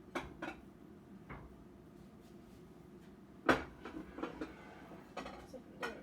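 Kitchen clatter: a string of sharp knocks and clinks as plates and a cake pan are handled and set down, the loudest knock about halfway through.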